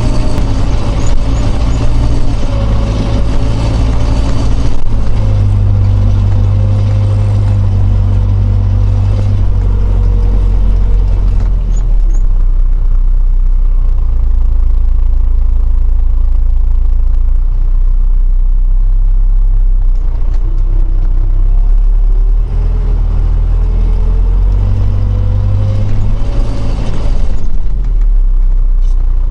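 Heavy tractor diesel engine running with a deep steady rumble, its pitch slowly easing down and then rising again as the revs change.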